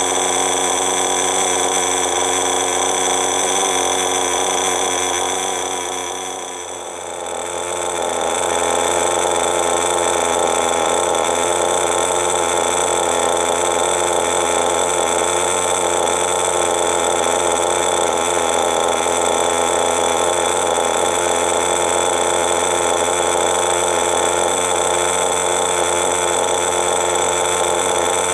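Veco .21 two-stroke nitro engine of an RC buggy running steadily at idle with a high, even exhaust note. The sound briefly drops away about six seconds in, then comes back at the same steady pitch.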